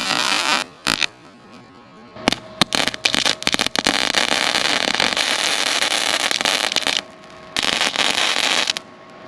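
Electric arc welder crackling in stop-start runs: a short run at the start, a sputtering restart about two seconds in that settles into a steady crackle until about seven seconds, then another run near the end. The welds are patching pinhole leaks in the roller's metal drum.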